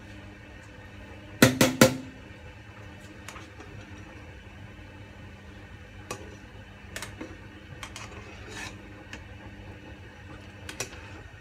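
Metal skimmer knocked three times in quick succession against a cooking pot, then lighter clinks of the skimmer in the pot at intervals, over a steady low hum.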